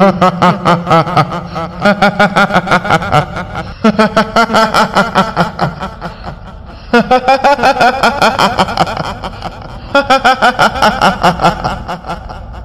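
A kuntilanak ghost's cackling laugh, done in a woman's voice as a quick staccato 'hihihi'. It comes in several runs of about two seconds each, with short breaks between them.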